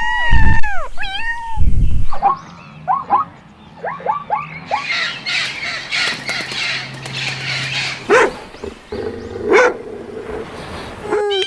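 Domestic animals, dogs and cats, calling: a few arching cries near the start, then a run of short, sharp yelps and barks.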